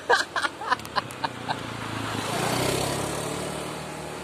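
A motorcycle engine comes up and passes, getting louder to a peak about two and a half to three seconds in, then fading to a steady hum. A few short clicks or snatches of voice come in the first second and a half.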